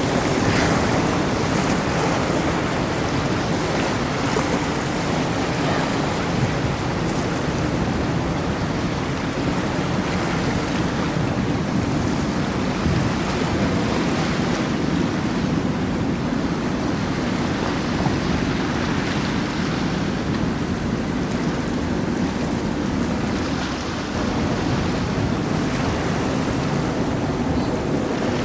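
Steady rush of waves and boat wake in an inlet, with the low rumble of passing boats' engines under wind buffeting the microphone.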